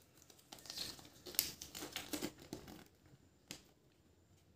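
Faint crinkling and rustling of a Kinder Joy toy's folded paper leaflet and wrapper being unfolded by hand, with small clicks; it stops a little under three seconds in, then a single tick.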